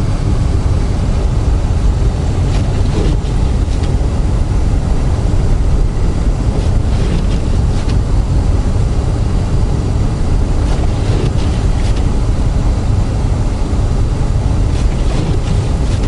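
Steady low rumble of a car heard from inside the cabin while driving on a snow-covered road: engine and tyre noise, with a few faint ticks.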